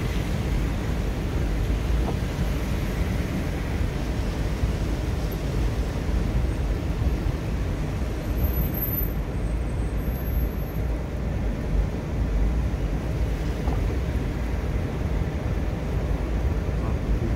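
Steady low rumble of a car's interior as it creeps along in slow traffic, heard from inside the cabin.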